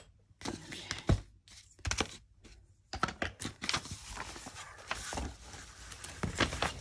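Craft supplies being handled and put away on a table: a few sharp knocks as things are set down, then a few seconds of rustling.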